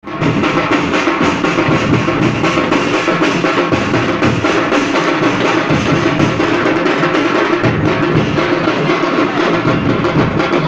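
Drums beating a fast, dense, continuous rhythm, with several drums played together.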